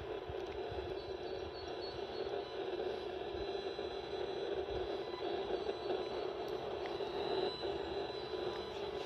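EMFields Acoustimeter's speaker giving a steady buzzing hiss, its audio rendering of the radio-frequency signals it is picking up.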